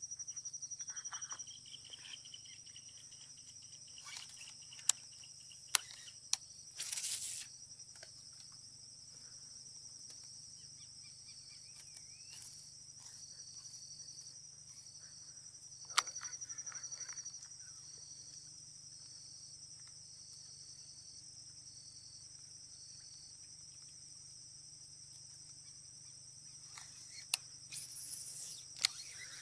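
A steady, high-pitched chorus of insects, with one of them pulsing about once a second. A few sharp clicks and two brief swishes sound over it.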